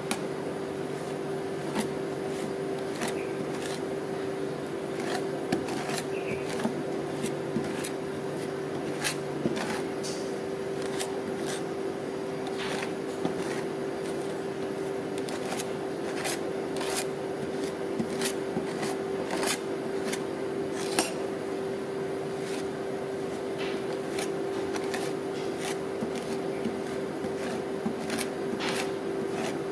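Metal spatulas tapping and scraping on the steel cold plate of a rolled ice cream machine as sticky rice and egg ice cream is spread and chopped, giving irregular sharp clicks about once or twice a second over a steady hum.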